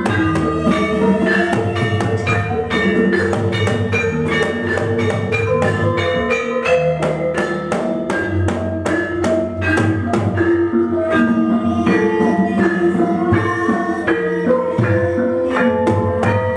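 Javanese gamelan ensemble playing: kendang hand drums under bronze gong-chimes and metallophones, in a dense, even pattern of struck, ringing notes at about three strokes a second.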